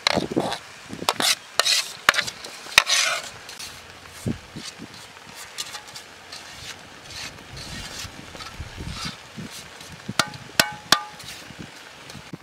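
Food stirred in a cooking pot with a metal utensil, sizzling, with scraping knocks during the first few seconds. Near the end come a few ringing clinks of metal on metal.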